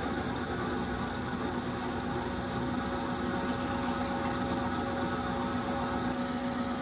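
Milling machine spindle running steadily as a freshly hand-sharpened 9/16-inch drill bit cuts into aluminum, making a steady machine hum with a low tone. A faint light scratchy ticking joins in about halfway through.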